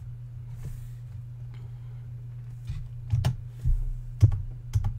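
Scattered keystrokes and clicks on a computer keyboard and mouse, sparse at first and closer together and sharper in the second half, over a steady low hum.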